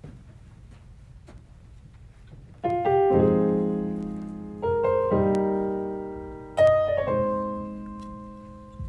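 Piano playing slow sustained chords, starting a little under three seconds in after faint room noise; three chords are struck about two seconds apart, each left to ring and fade.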